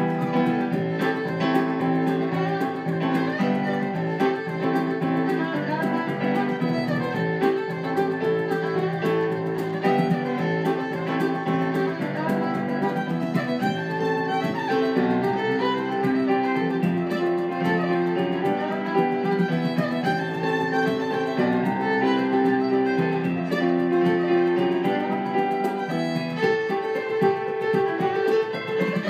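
Fiddle and stage piano playing a traditional tune in 6/4 time together.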